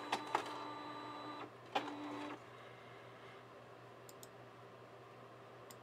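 Epson DS-510 sheet-fed scanner feeding a trading card through, a steady motor whine with clicks from the rollers. It stops about a second and a half in, then runs again briefly with a click about two seconds in.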